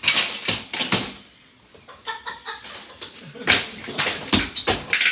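A box fan being smashed: a run of sharp, irregular blows, with the plastic housing and parts cracking and clattering.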